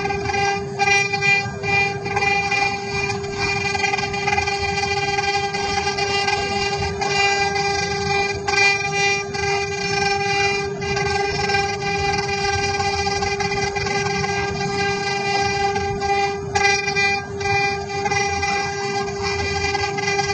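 CNC machine running, with a steady whine of several tones held unchanged over a rushing noise and a few brief clicks.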